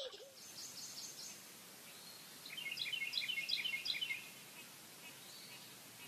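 Songbird chirping: a quick run of short high chirps starting about two and a half seconds in and lasting under two seconds, with a fainter run of chirps near the start.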